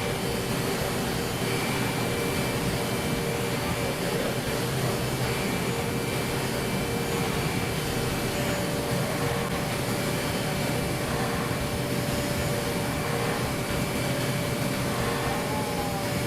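5-axis CNC machining centre milling aluminium at high speed: a steady spindle whine with several held tones over an even rushing cutting noise.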